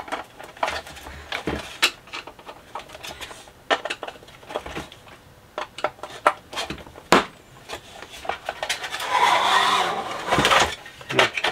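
Screwdriver and screws clicking and tapping against a sheet-metal equipment case as its side panel is screwed back on. About 9 s in comes a longer scrape of metal, then a single loud clunk as the case lid is handled.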